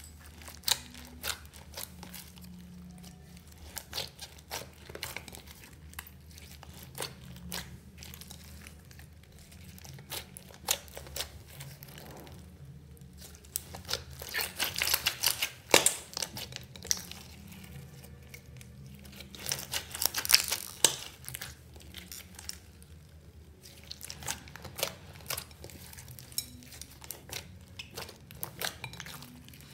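Hands kneading and squishing sticky slime in a glass bowl: a run of wet popping and crackling clicks, with two denser bouts of crackling, about halfway through and about two-thirds in, over a faint low hum.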